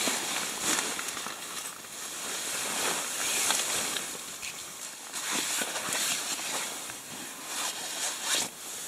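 Nylon tent fabric and gear rustling and crinkling as someone moves around inside a small tent. It comes in uneven waves, loudest about three and a half seconds in.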